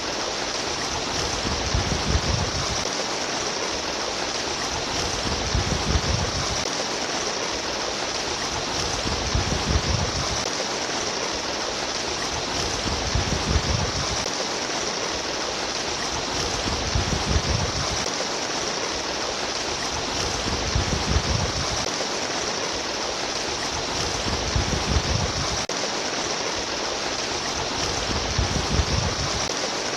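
Babbling stream water running steadily, with a low rumble that swells and fades about every four seconds.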